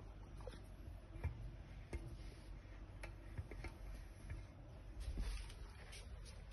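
Faint scattered clicks and taps as a hand works the lever of a chrome single-lever mixer tap on a ceramic shampoo basin, about eight in all at irregular intervals.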